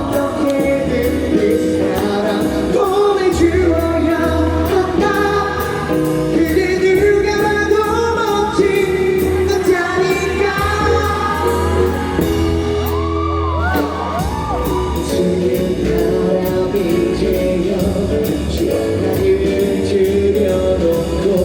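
Live pop-rock band performance: sung vocals over electric band accompaniment with drums keeping a steady beat and a sustained bass line, heard loud through a concert hall's sound system.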